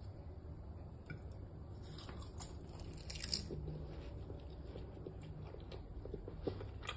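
Crisp, flaky baked yufka börek being cut with a fork and knife on a plate: the pastry crackles in small crunches with light clicks of cutlery, loudest about three seconds in.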